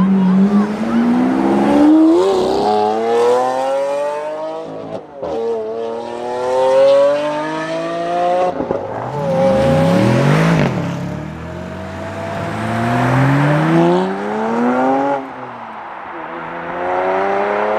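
Lamborghini Aventador V12 accelerating hard through several upshifts: each gear is a rising howl cut off by a sudden drop in pitch as the next gear engages. Near the middle a car sweeps past with a rise and fall in pitch, and near the end another sports car accelerates in the same way.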